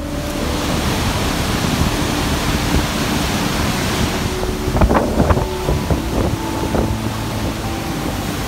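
Steady roar of white water from a waterfall and river in flood, with a few sharper gusts or splashes about halfway through.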